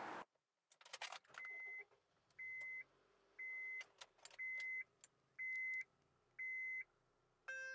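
A car's warning chime beeping a steady high tone six times, about once a second, after a few clicks and rattles like keys and a door. A short, lower, buzzy tone sounds at the very end.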